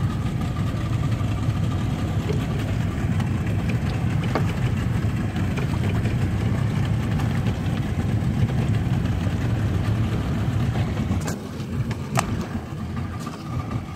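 The engine of a small fishing boat drones steadily while under way, with water rushing along the hull. About eleven seconds in the drone eases a little and there are two sharp knocks.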